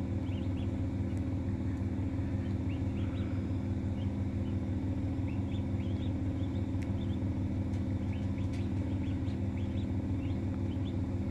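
Newly hatched Silver Appleyard ducklings peeping in short, faint, rising chirps, every second or so, over the steady low hum of the incubator running.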